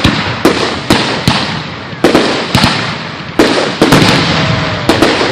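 Aerial fireworks shells bursting overhead in quick succession, about two bangs a second, each followed by a fading crackle and echo.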